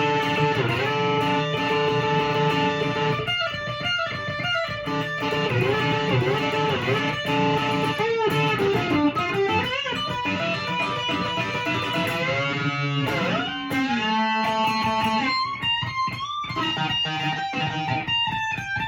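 Steel-strung electric tenor ukulele (Flight Centurion) played through an amp with a pick in electric-guitar style, a lead line with string bends and vibrato.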